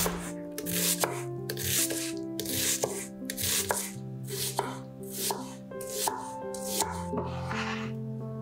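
Chef's knife dicing a white onion on a wooden cutting board: a steady run of crisp cuts, each ending in a knock of the blade on the board.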